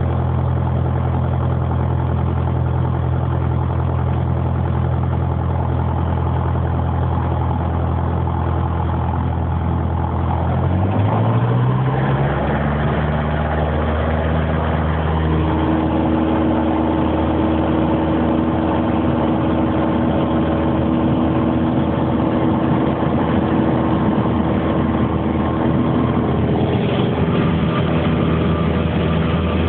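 Light aircraft engine running steadily, then rising in pitch over a second or two about eleven seconds in as the throttle is opened, and holding at the higher speed.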